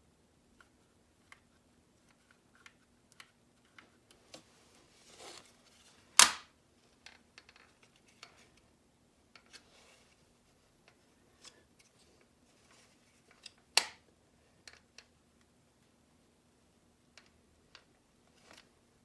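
Scattered light clicks and taps from handling the plastic parts of a car door lock actuator during a motor swap, with two sharp snaps, about six seconds in and again about fourteen seconds in.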